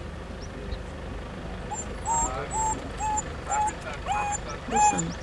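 An animal calling: a run of about seven short, pitched calls, each rising sharply to a held note, roughly two a second, starting about two seconds in and growing louder toward the end, over a steady low rumble.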